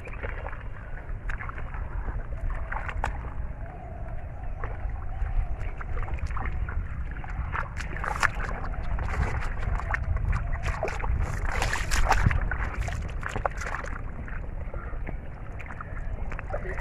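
Water sloshing and splashing as hands work through shallow river water feeling for fish, with many short splashes that come thickest in the middle and a steady low rumble underneath.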